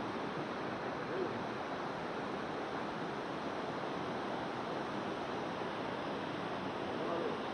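Steady rush of a river flowing over a small weir: an even wash of water noise with no distinct events.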